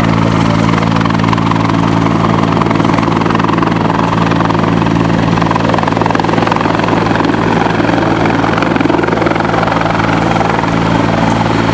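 Search-and-rescue helicopter hovering overhead: a loud, steady rotor and turbine din over a constant low hum, with no change in pitch.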